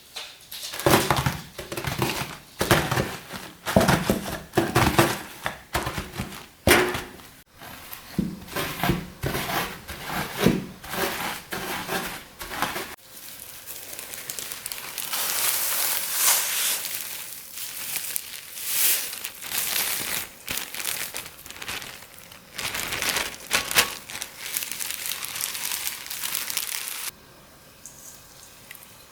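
Digestive biscuits and their plastic packet being crushed by hand, a dense run of sharp crunches and crinkles. About halfway through it turns to a lighter, hissy crinkling, which stops abruptly near the end.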